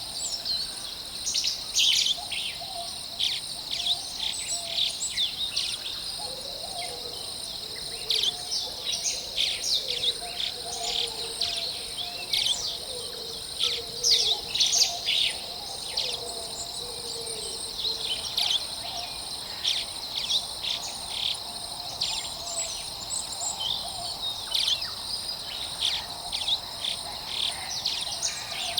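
Forest birds chirping and calling in short, scattered high notes over a steady, high-pitched insect drone.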